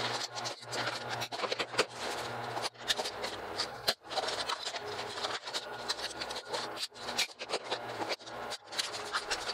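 Vinyl siding panel being handled and trimmed with tin snips: irregular plastic scrapes, rattles and sharp snip clicks, over a low steady hum.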